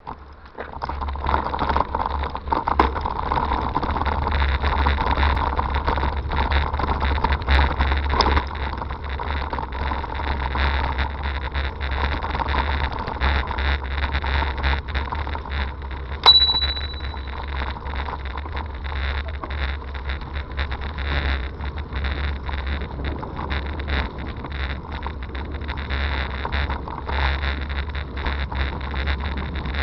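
Hybrid bicycle rolling along a gravel towpath: a steady rumble of tyres on grit with wind on the microphone. About sixteen seconds in, a bicycle bell rings once, a sharp ding that fades over about a second.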